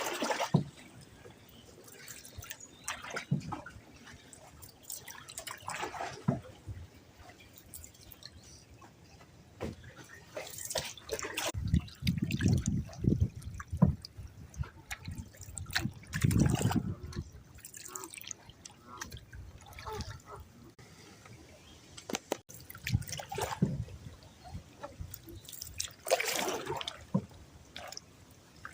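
Water splashing and dripping in irregular bursts every few seconds as a canoe paddle dips and lifts, with a few low knocks in the middle.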